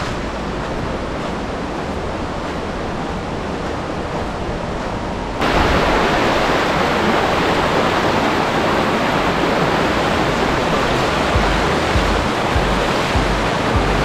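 Fast-flowing river water rushing over rocks in a steady roar that jumps suddenly louder about five seconds in.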